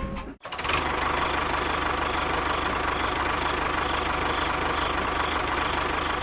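An engine idling steadily at an even, constant pace after a brief gap.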